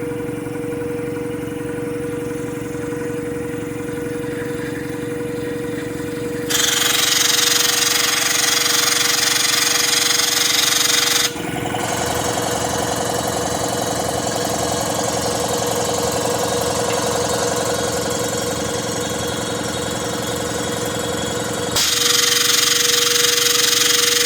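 Small Quincy air compressor pump running steadily, then loud rushing air from about six and a half seconds in, compressed air venting with the unloader muffler taken off. About eleven seconds in the pump's sound changes and the loud rush drops away, then the rushing air returns near the end.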